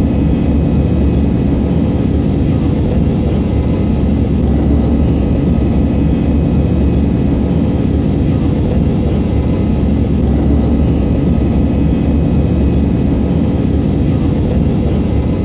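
Cabin noise of an Airbus A320 climbing after takeoff: the jet engines' steady rumble, with a few faint steady whining tones above it.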